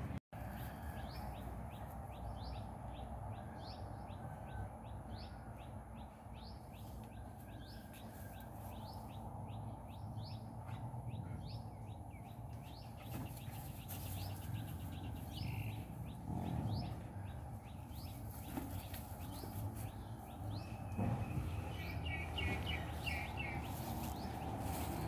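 Birds chirping outdoors: a long, even series of short, high chirps, about three a second, over steady background noise, with a brief run of warbled notes near the end.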